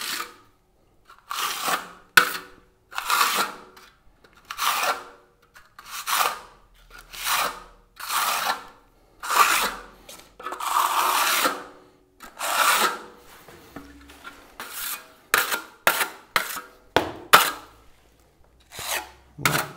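A steel plastering blade scraping over wet travertine decorative plaster in repeated smoothing strokes, about one a second, some longer than others.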